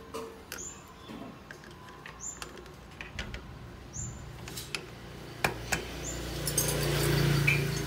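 Light metallic clicks and taps as steel fixture parts are handled and seated in a lathe's chuck, with a short high chirp repeating about every second and a half. In the last two seconds a low hum with hiss swells up and becomes the loudest sound.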